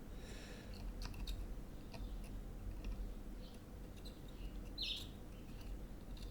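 Faint scattered clicks and short hisses from soldering work on a key fob's tactile switch, over a steady low hum.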